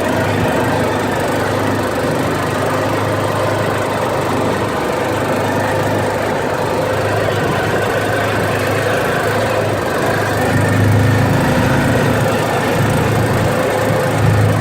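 Arctic Cat off-road vehicle's engine running steadily under way, picking up a little about ten seconds in, with wind noise from riding.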